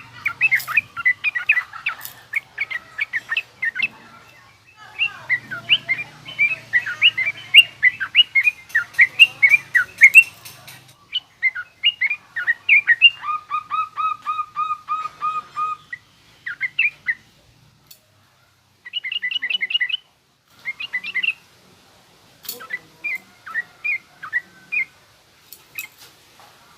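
Yellow-vented bulbul (trucukan) giving a harsh, rapid chattering 'ngriwik' call, with runs of short sharp notes broken by brief pauses, including a fast, even trill.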